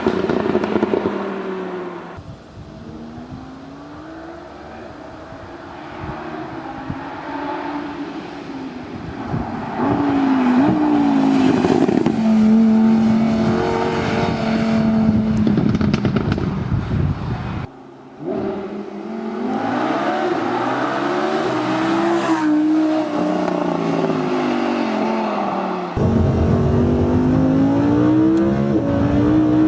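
Lamborghini Huracán LP610-4's V10 engine accelerating hard, its pitch climbing and dropping again and again as it pulls through the gears. Several separate takes, with abrupt cuts from one to the next.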